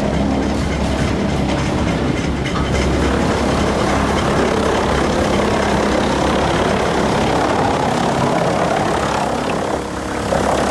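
Wood chipper running steadily under heavy engine power, a constant loud mechanical drone that dips briefly near the end.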